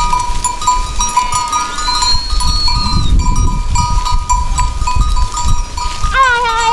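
Livestock bells on a flock of sheep ringing and clanking continuously, with a bleat near the end.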